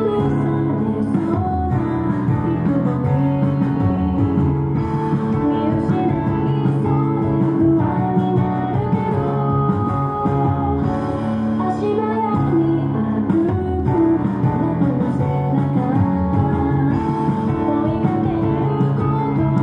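Upbeat idol pop song with guitar and singing, played over a stage sound system.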